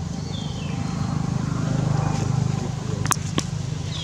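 Low engine hum of a passing motor vehicle, swelling to its loudest around the middle. A short high falling squeak comes early on, and two sharp clicks come near the end.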